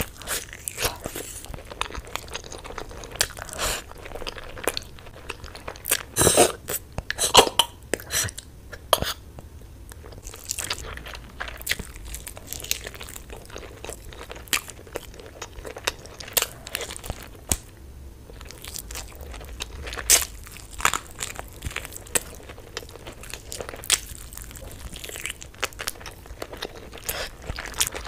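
Close-miked eating: crunchy bites and wet chewing of spiced meat, in irregular clicks and crackles, with a few louder bites about six to seven and a half seconds in.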